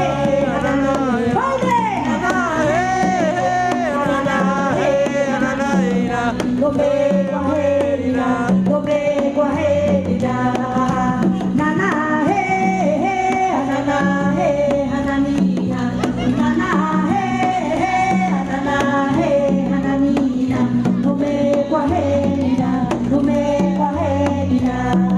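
Live folk music: a wavering melody line over a repeating bass line of held notes.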